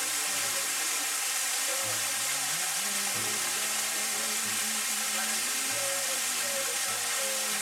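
Waterfall pouring down a rock face into a pool, a steady rush of falling water.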